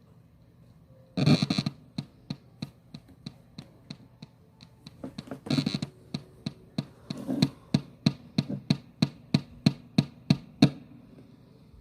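Ghost-box setup giving off a string of sharp clicks, about three a second, broken by a few short louder bursts of sound. It is a glitch of the setup settling in that its owner can't explain.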